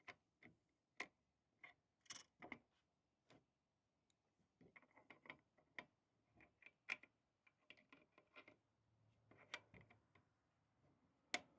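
Faint, irregular clicks and light scraping of a JTS M12AR shotgun's bolt carrier and charging handle being lined up with the rail and slid into the upper receiver during reassembly.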